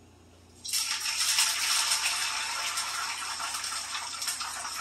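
Beaten egg hitting smoking-hot vegetable oil in a frying pan: a sudden loud sizzle starts about half a second in and carries on, slowly easing.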